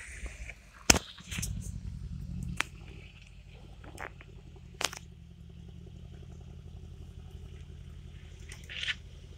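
Mercedes-AMG coupe engine running low and deep as the car moves slowly along the street, louder for about a second starting a second and a half in, then steady. A few sharp cracks stand out, the loudest about a second in.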